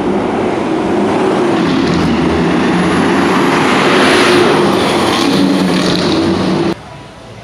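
A motor vehicle's engine running close by, with road noise swelling to a peak about four seconds in as it passes, cutting off abruptly near the end.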